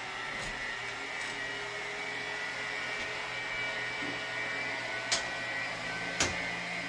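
An electric motor running steadily, a whirring noise with a high whine. It spun up just before. Two sharp clicks come near the end.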